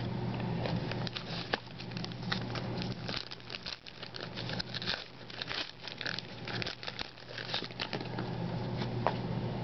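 Trading-card pack wrappers crinkling and cards being handled, a dense run of small crackles and clicks over a low steady hum.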